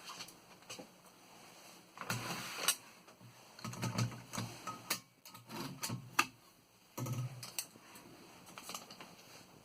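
A 1924 L.C. Smith & Bros. No. 8 manual typewriter being worked: irregular key strikes and clicks of its mechanism, with louder clattering stretches about two, four and seven seconds in.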